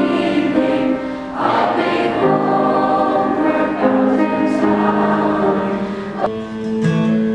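Teenage school choir singing a slow piece in long held chords, with short breaks between phrases; near the end the sound changes as the next piece begins.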